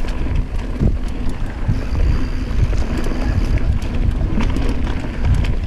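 Wind buffeting an action camera's microphone as a mountain bike descends a dirt trail at speed, with a steady low rumble from the tyres and frame over the rough ground and scattered sharp ticks and rattles from the bike over bumps.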